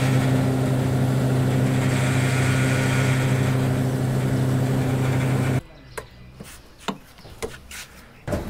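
An engine running steadily at an even pitch, which cuts off abruptly about five and a half seconds in, leaving a few faint clicks and knocks.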